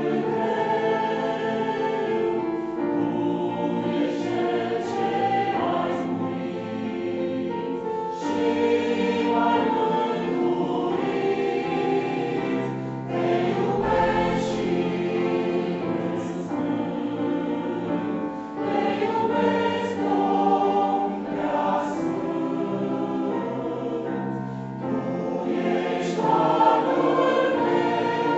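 Mixed church choir singing, men's and women's voices together, with sustained notes that change every few seconds.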